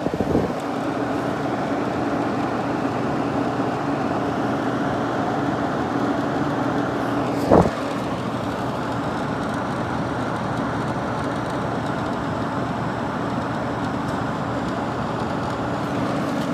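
Late-1960s Sears Coldspot 6,000 BTU window air conditioner running on its low setting, fan and compressor on: a steady, a little noisy whir with a low hum. A single sharp knock comes about halfway through.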